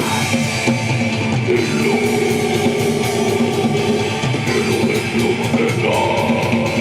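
Rock band playing live: distorted electric guitar and drum kit, loud and steady, with a regular drum beat.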